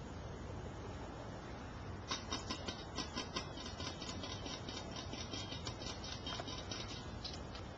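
Quick, irregular light clicks and taps, several a second, starting about two seconds in over a steady low background.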